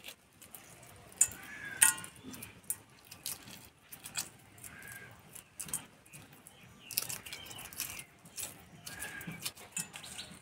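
Shells of hard-boiled eggs cracking and crackling as they are peeled by hand, in irregular small clicks, with shell pieces tapping onto a steel plate. A few faint bird chirps in the background.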